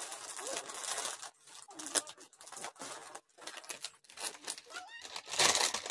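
Plastic snack packets rustling and crinkling as they are handled, in irregular bursts, with a louder burst of rustling near the end.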